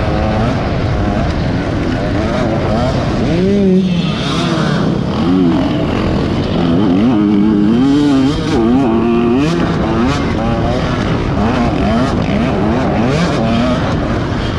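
Several racing engines revving hard, each note climbing and then dropping back over and over as the vehicles shift gears and pass, with more than one engine heard at once.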